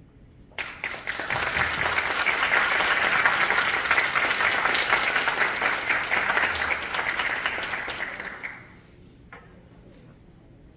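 Audience applauding, starting about half a second in and dying away after about eight seconds.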